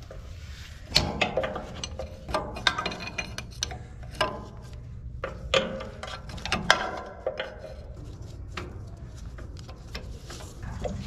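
Ratchet wrench clicking in irregular runs, with sharp metal knocks, as bolts on a diaphragm pump's metal housing are worked loose. The clicking is busiest in the first two-thirds and thins out near the end.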